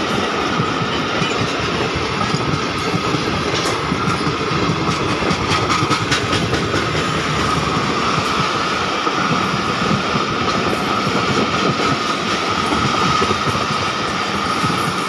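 Pakistan Railways passenger coaches rolling past close by: a loud, steady rumble of steel wheels on rail with a steady high ringing note over it, and a run of wheel clicks over the rail joints in the middle.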